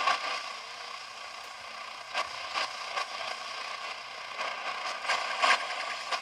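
Retekess V117 pocket radio hissing with static through its small speaker, with a few short crackles, while the AM band is tuned and no station comes in.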